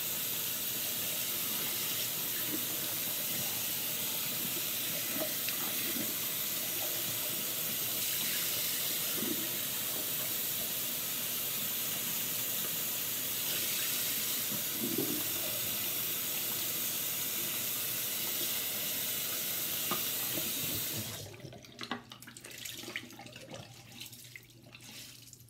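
Bathroom sink tap running steadily as face cleanser is rinsed off. The water is shut off a few seconds before the end, leaving scattered small drips and splashes.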